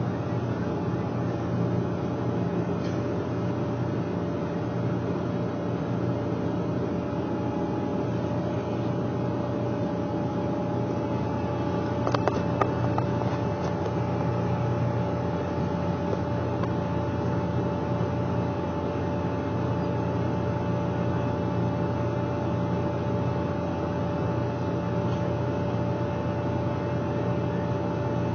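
John Deere 9996 cotton picker and 7630 tractor running steadily while the picker dumps its basket into a boll buggy: a constant engine drone with a steady whine over it. There are a few sharp knocks about twelve seconds in.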